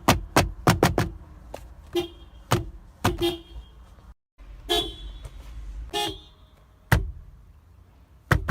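Toyota car horn honked in short taps: a quick run of about five toots in the first second, then single toots roughly every half second. After an abrupt cut about four seconds in, a few more short toots spaced about a second apart.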